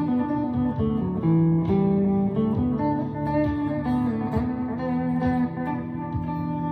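Chapman ML3 Pro Traditional electric guitar with Seymour Duncan Hot Tele pickups, played ambient-style: single picked notes that ring on and overlap one another.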